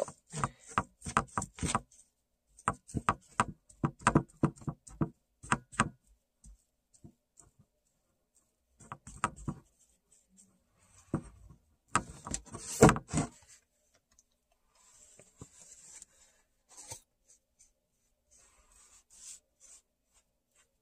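Paintbrush dabbing paint onto a picture frame: runs of quick soft taps and brushing strokes, loudest about thirteen seconds in, then only faint scattered ticks.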